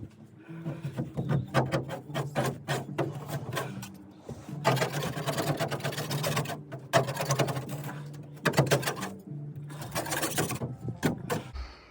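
Background music with a stepping bass line under a fast, busy rhythmic clatter, loudest in two stretches through the middle and later part.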